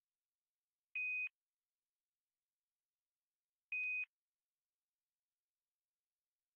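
Two short electronic beeps at the same high pitch, about three seconds apart: communications-loop tones as operational audio from the space station resumes.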